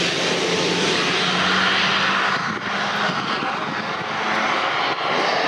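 RC model aircraft engine running steadily, a continuous rushing sound with a low hum underneath.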